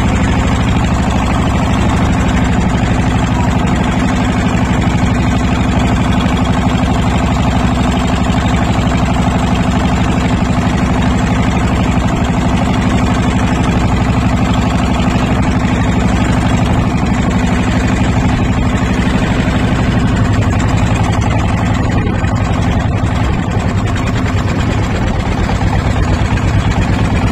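Motorboat's engine running steadily and loudly.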